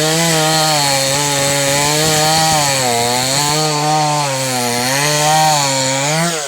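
Chainsaw cutting wood at full throttle, its engine pitch sagging and picking up again as the chain bites. Near the end the throttle is let off and the engine speed falls away quickly.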